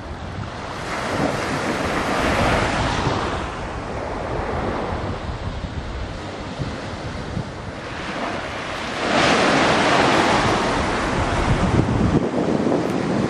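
Wind buffeting the microphone, a rough rushing noise with a heavy low rumble. It swells in two gusts, one about a second in and a longer one from about nine seconds in.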